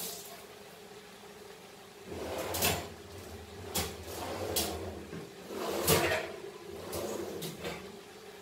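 Kitchen clatter from about two seconds in: six or so sharp knocks and clicks with a low rumble between them, the loudest near the middle, like cupboard doors or utensils being handled. A faint steady hum lies under it.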